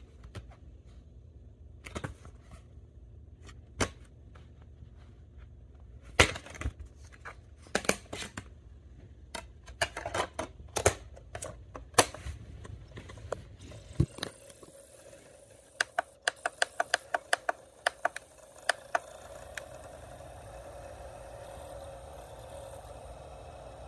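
Plastic clicks and knocks of a DVD case being opened and a disc handled and set into a Sylvania portable DVD player, its lid snapping shut. About 16 s in, a quick even run of about a dozen small button clicks as the volume is stepped up, over a steady hum from the running player.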